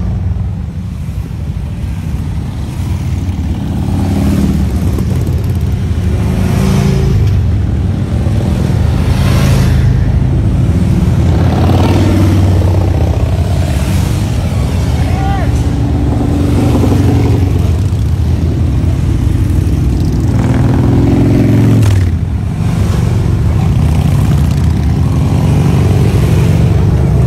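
A procession of motorcycles, mostly large touring bikes and trikes, riding past at low speed one after another, their engines running loud and continuous, with the sound swelling and dipping as each bike goes by.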